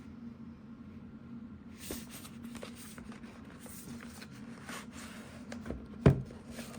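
Cardboard packaging of a sharpening-stone kit being handled and opened: faint rustles and light taps, with a sharper knock about six seconds in, over a steady low hum.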